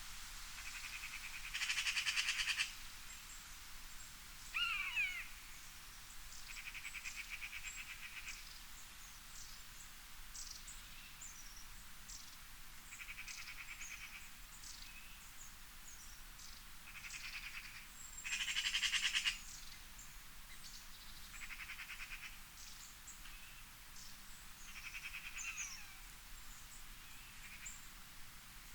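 Wildlife chorus of repeated pulsed, buzzing trills, each lasting one to two seconds, with two louder ones near the start and about two-thirds through. Scattered short high chirps and one falling whistled call about five seconds in run between them.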